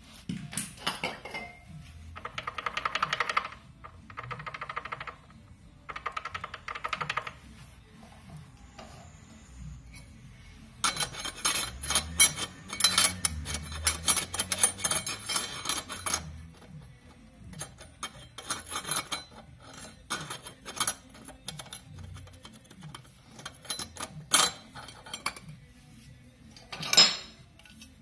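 Lambretta clutch plates and metal parts clinking and rattling as they are handled and fitted into the clutch housing. The sound comes in bursts of rapid metallic clicks, a longer busy stretch of clinking midway, then scattered clicks and a sharp metal knock near the end.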